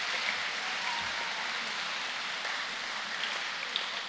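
Audience applause in a large hall, slowly dying away, with a few scattered claps near the end.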